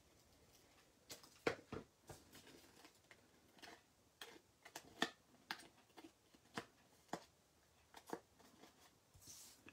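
Faint, irregular clicks, taps and light rustles of cardstock pieces being handled and pressed together by hand.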